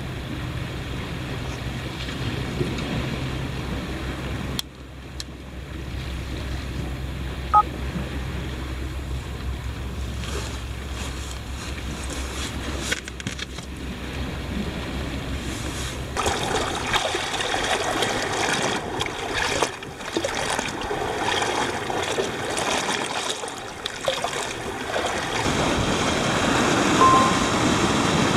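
Sea waves washing against a rocky shore, with wind rumbling on the microphone for the first half; from about halfway the surf sounds brighter and hissier.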